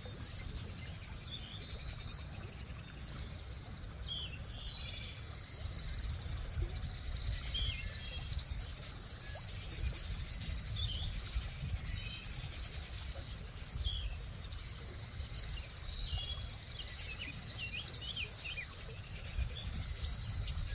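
Outdoor ambience of birds chirping in short, scattered calls, busiest near the end, over a steady low rumble and a thin high whine that comes and goes.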